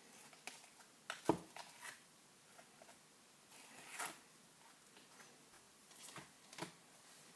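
Coloured slime being handled and laid side by side in its container: faint sticky handling noises and small clicks, with a sharp knock about a second in and a soft squelchy swell about four seconds in.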